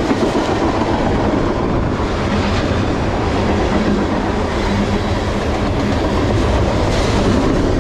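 Freight cars of a CSX manifest train, flatcars loaded with open-top waste containers, rolling past: steel wheels running on the rails make a steady, continuous noise.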